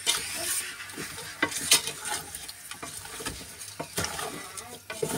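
Spoon stirring raw meat and gizzards in a hot metal pot: irregular scrapes and knocks against the pot over a steady sizzle of the meat cooking in its own juices.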